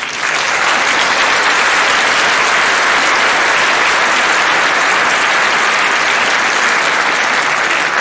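Audience applause that breaks out suddenly and holds steady as a dense wash of clapping.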